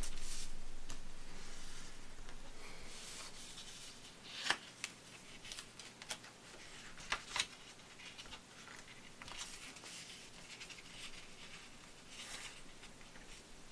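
Sheet of paper rustling and scraping as hands fold it and press down the creases, with a few short sharp clicks in the middle.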